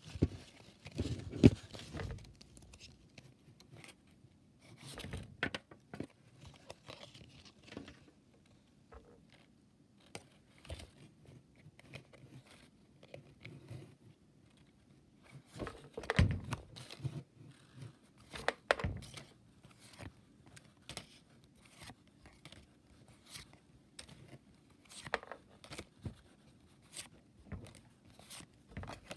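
Pokémon trading cards being handled and flipped through one by one: intermittent rustling and crinkling with light clicks, in a few louder spells separated by quieter gaps.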